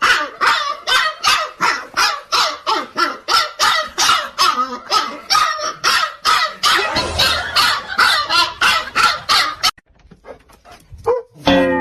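A dog barking over and over, about three barks a second, stopping abruptly about ten seconds in. Near the end comes a short call falling in pitch.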